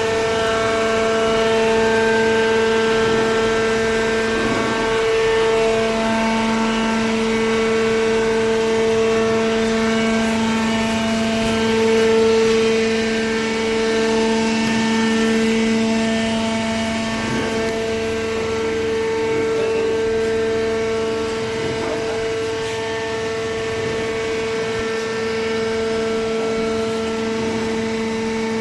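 Vertical hydraulic waste-paper baler's hydraulic pump and motor running, a steady pitched hum with a few faint knocks.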